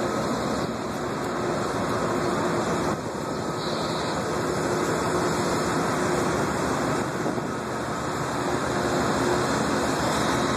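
Amtrak P42 diesel locomotive, its V16 prime mover idling steadily.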